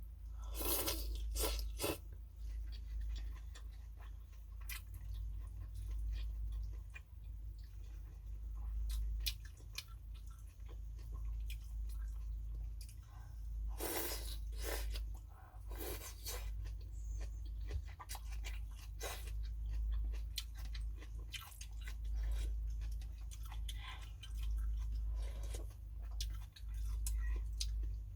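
Close-up eating sounds from a bowl of pho: chewing, with scattered short crunches and clicks, and a few louder ones about a second in and around 14 and 16 seconds. A steady low hum runs underneath.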